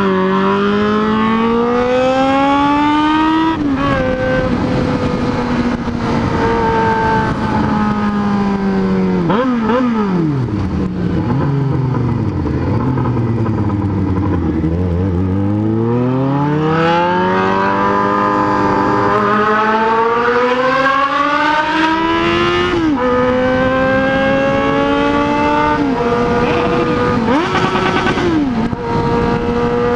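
Loud inline-four motorcycle engine accelerating through the gears: its pitch climbs under throttle and drops sharply at each upshift, several times. In the middle it winds down slowly, then pulls back up through a long climb, with a short rev and drop near the end.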